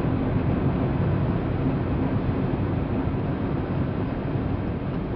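Steady low rumble of the Space Shuttle's rocket engines during ascent, heard from inside the orbiter's crew cabin, easing off slightly toward the end.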